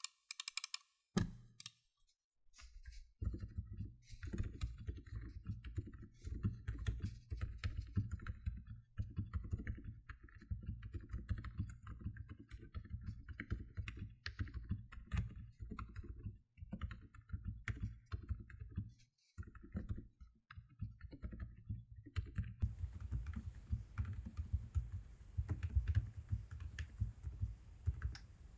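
Fast, continuous typing on an FL Esports CMK87 mechanical keyboard with lubed and filmed Outemu Silent Peach switches, XDA-profile keycaps and lubed, holee-modded stabilizers: muffled, low keystrokes in a rapid stream, after a few scattered key presses at the start and with two brief pauses midway.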